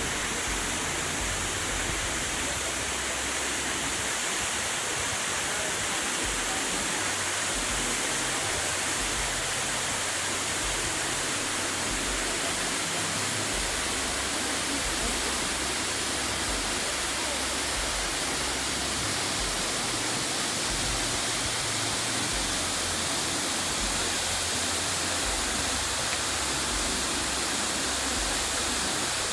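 Multnomah Falls, a tall two-tiered waterfall, rushing steadily: an even noise of falling water with no change throughout.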